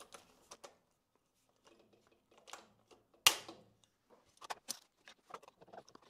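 Hand pop-rivet tool setting aluminium rivets in a sheet-aluminium housing: faint clicks and handling noises, with one sharp snap a little over three seconds in as a rivet mandrel breaks.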